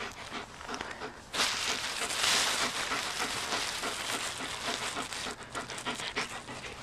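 Black German Shepherd Dog panting in quick, rhythmic breaths close to the microphone. A loud rushing noise comes in about a second and a half in and fades out after a few seconds.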